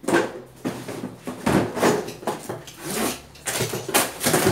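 Hands rummaging through an opened cardboard shipping box of cosmetics: a series of irregular rustles, crinkles and scrapes of packaging and cardboard.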